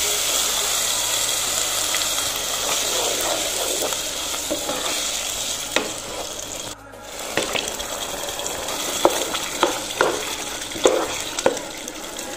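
Onion paste sizzling in oil in a pot while a wooden spoon stirs it, a steady hiss. About seven seconds in the sound cuts out briefly. After that a wooden spoon stirs a wetter tomato sauce, with several sharp knocks against the pot.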